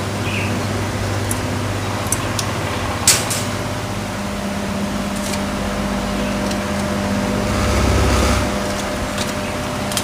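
A steady low mechanical hum, like a motor or fan, with a sharp click about three seconds in and a louder low rumble that swells and fades around eight seconds. No bird song is clear.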